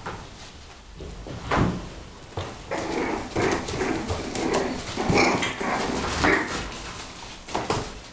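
Six-week-old bulldog puppies playing, with a busy run of short yaps and barks in the middle. A couple of sharp knocks come about a second and a half in and near the end.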